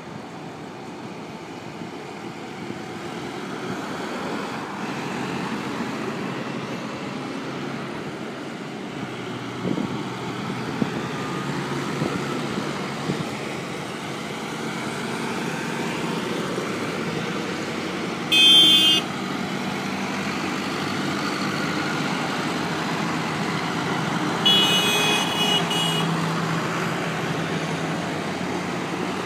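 Farm tractors driving past one after another in a procession, their diesel engines running steadily and growing louder as they come closer. A horn sounds twice: a short blast about 18 seconds in and a longer one about 25 seconds in.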